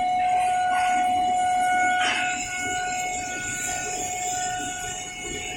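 Induction melting furnace giving a steady high-pitched electrical whine, with a second, higher tone pulsing on and off about once a second and a short burst of hiss about two seconds in.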